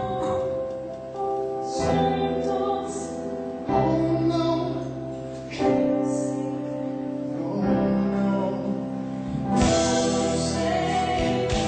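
Musical theatre singing with instrumental accompaniment, long held notes that change chord about every two seconds.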